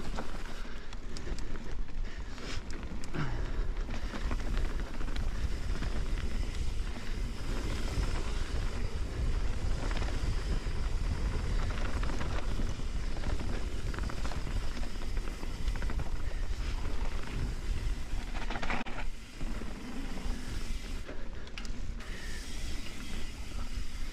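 Mountain bike riding down a dirt forest trail, heard from the rider's camera: a steady rumble of wind on the microphone with tyre noise on dirt, and scattered knocks and rattles from the bike over the bumps.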